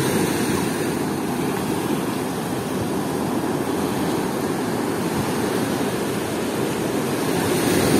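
Ocean surf breaking on a sandy beach: a steady, even rush of waves with no pauses or separate strokes.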